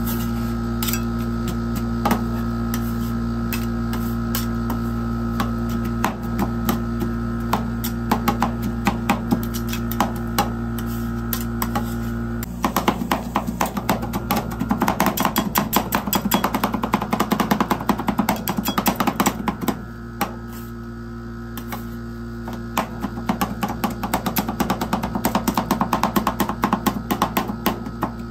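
Steel spatulas chopping and scraping on the frozen metal plate of an ice cream roll machine, a fast run of sharp metallic taps as KitKat pieces are chopped into the cream base. The tapping gets denser about twelve seconds in, over a steady hum.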